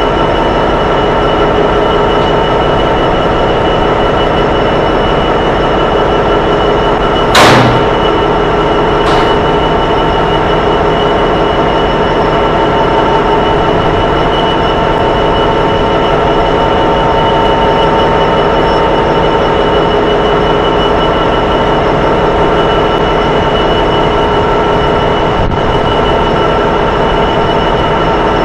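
Class 66 diesel-electric locomotive's two-stroke EMD V12 engine idling at a standstill: a steady drone with several held tones. A sharp bang about seven seconds in, and a fainter click about two seconds later.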